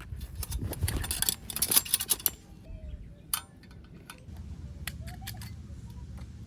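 A quick run of light clinks and rattles lasting about two seconds, then a few scattered single clicks over a low steady rumble.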